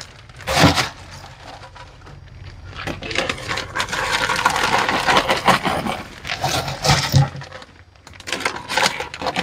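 Popped popcorn scooped with a plastic scoop and poured into a plastic bag: rustling and light clattering of the kernels. There is a sharp knock about half a second in and a cluster of clicks near the end.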